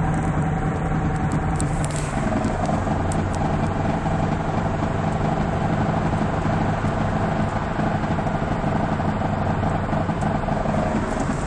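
Toyota Celica ST202 on the move: a steady drone of running gear and road noise with a constant hum, the sound of a strange beating from a rear wheel that the owner wonders is a worn wheel bearing. The hum shifts slightly about two seconds in.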